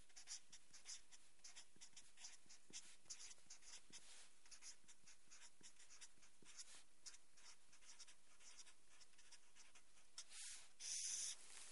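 Green marker pen writing letters in short, quick strokes: a faint run of scratchy strokes, with a longer, louder stroke near the end.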